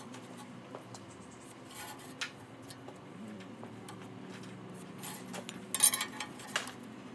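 Light metallic clicks and clinks as a speed square and a steel strap are handled and set against the machine's metal tool rest while marking out, with the loudest cluster of clinks about six seconds in, over a faint steady hum.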